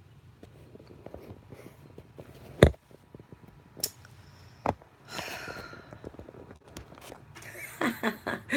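A few sharp knocks and clicks in a small room, the loudest about two and a half seconds in, then a woman's voice starts up near the end.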